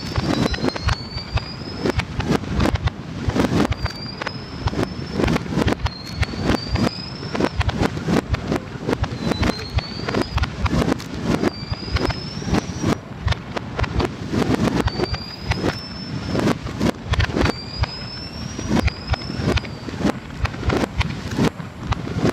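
Fireworks display played backwards: a dense barrage of aerial shell bursts and crackle heard in reverse over a low rumble. Whistling tones rise in pitch again and again through it.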